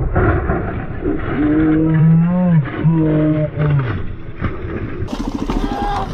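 A rider yelling in alarm over the rumble of motorcycle engine and wind: three long, loud held cries, the first beginning about a second in and the last breaking off near four seconds. A few scattered knocks and scrapes follow as the motorcycle hits the car and goes down.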